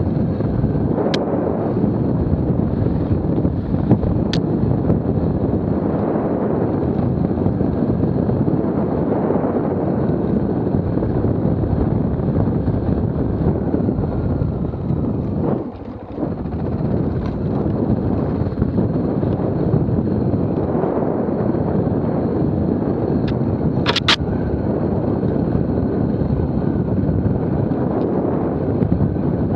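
Off-road motorcycle running along a dirt trail, its engine note mixed with wind on the helmet-mounted microphone. The revs drop off briefly about halfway through, then pick up again, and a few sharp clicks stand out, the loudest near the end.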